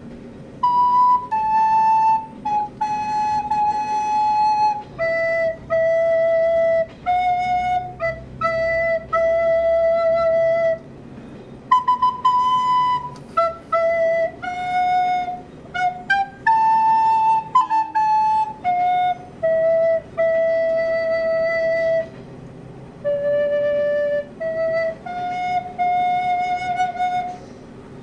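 Recorder played solo: a slow improvised melody of held notes and short phrases, with brief pauses between phrases.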